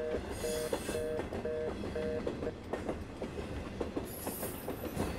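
Train running along, a steady low rumble with the clicks of the wheels over the rail joints. A fast two-note beep repeats over it and stops about halfway through.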